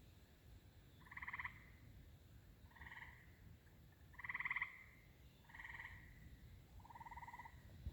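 Frogs calling from a pond: about six faint, short trilled calls, each around half a second long and spaced a second or so apart.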